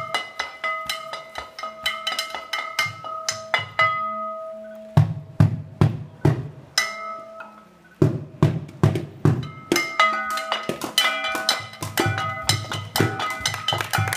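Percussion music: rapid struck strokes that ring at a few fixed pitches, over low drum-like beats. The playing thins out about four seconds in, drops nearly away just before eight seconds, then picks up again and grows busier toward the end.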